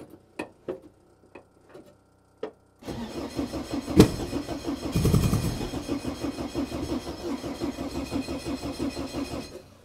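Volvo 240 rally car's engine being cranked by the starter for about seven seconds in the cold without catching, a steady rhythmic churn with a sharp click near its start. The crew suspect the spark plugs may be fouled.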